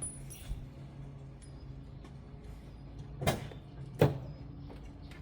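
Two sharp knocks about three-quarters of a second apart, over a steady low hum.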